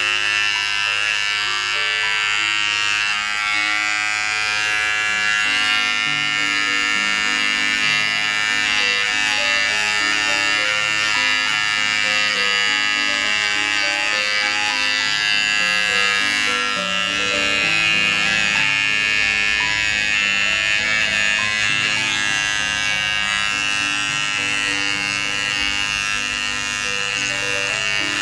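A GSE GS-007 battery-powered mini hair trimmer buzzing steadily as its blade cuts mustache and chin stubble. Background music with a changing melody plays alongside.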